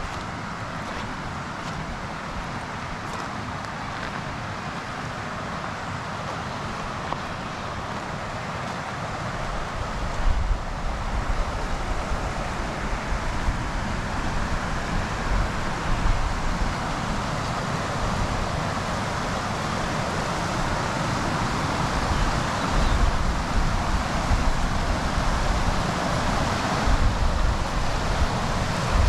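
Steady rushing noise that grows louder through the second half, with a low rumble of wind buffeting the microphone.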